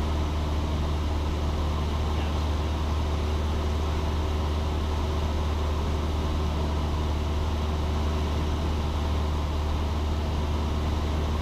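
Cessna 172's engine and propeller drone in level flight, a steady low hum with even overtones that does not change.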